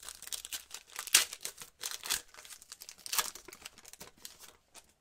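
A 2019-20 Optic basketball card pack's wrapper being torn open and crinkled by hand, a run of sharp crackling rustles, loudest about a second in and again around two and three seconds in.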